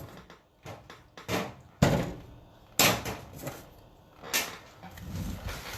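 Several separate sharp knocks and clacks, the loudest a little under two seconds in and another near three seconds: parts of a high-voltage wire and connector assembly being handled and pulled apart.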